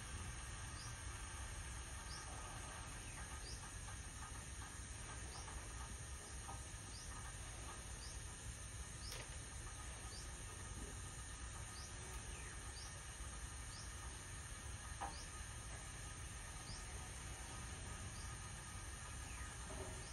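Faint ambience: a short, high chirp from a small creature repeats about every 0.7 s over a low, steady rumble.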